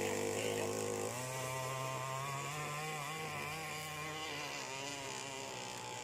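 Small petrol engine of a remote-control powerboat running, with a buzzy, chainsaw-like note; the revs rise about a second in and ease off after about four seconds.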